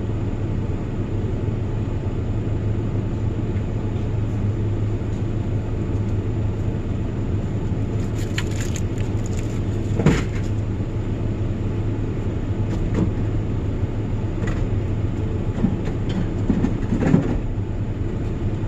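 Truck driving, a steady engine and road rumble heard from inside the cab, with a few short knocks and rattles along the way.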